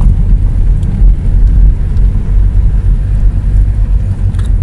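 Car driving along an unpaved dirt road: a loud, steady low rumble of tyres and engine.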